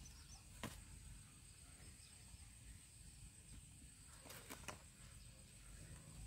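Near silence: faint outdoor ambience with a steady high-pitched tone and a few soft clicks, one under a second in and a quick cluster a little past four seconds.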